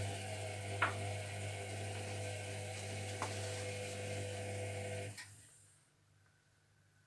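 Zerowatt/Hoover Performa 1000 washing machine running with a steady electric hum and hiss, with a couple of faint knocks, then shutting off abruptly about five seconds in, leaving near silence.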